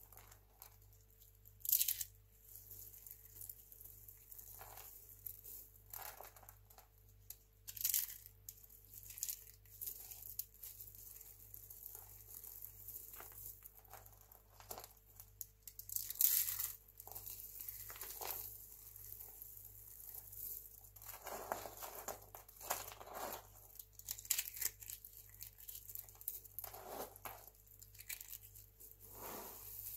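Hands rummaging through and squeezing a heap of dry recycled-soap flakes, giving irregular crisp rustling crunches, with sharper crunches about two, eight and sixteen seconds in.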